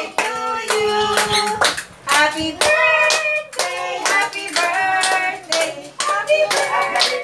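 A song with a sung lead vocal and sharp clap-like hits in the beat, playing loudly.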